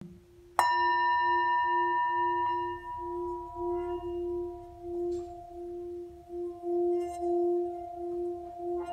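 Handmade antique-type singing bowl resting on a palm, struck once with a padded mallet about half a second in. It gives a bright ring with many overtones that fade over a few seconds, above a low hum that keeps sounding and swells and ebbs in a slow, wavering pulse.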